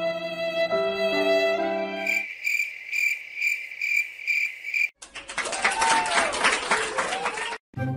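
Background violin music that breaks off about two seconds in for a cricket chirping in even pulses, about three a second. About five seconds in the chirping cuts off and a dense hissing noise with a few sweeping tones takes over.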